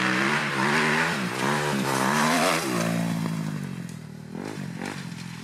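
Dirt bike engine revving up and down in short throttle blips, then dying away over the last couple of seconds.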